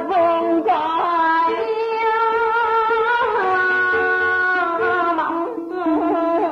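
A woman's voice chanting Vietnamese poetry in the slow ngâm thơ style: long drawn-out notes that bend and slide between pitches, moving to a higher held note about halfway through, over a plucked-string accompaniment.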